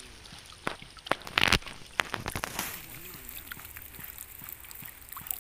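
Water splashing and dripping in a fine-mesh lift net as a hand scoops small fish out of it. There are several sharp taps and one louder splash about one and a half seconds in, then fainter trickling.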